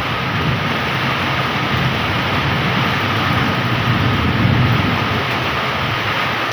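Heavy rain pouring steadily, with a low rumble that swells about four seconds in.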